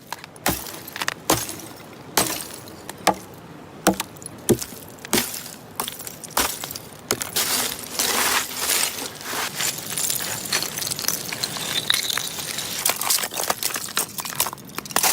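Ice cracking and breaking: sharp cracks and glassy clinks, a few at a time at first, then coming thick and fast from about seven seconds in.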